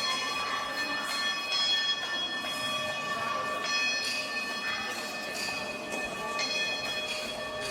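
Several metal cowbells ringing, struck again about once a second so that new ringing tones keep overlapping the ones still sounding.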